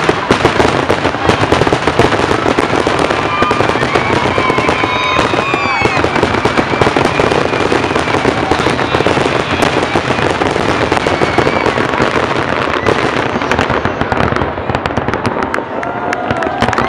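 Fireworks finale: a dense, continuous barrage of rapid overlapping bangs and crackling, with whistles gliding up and down over it in the first few seconds.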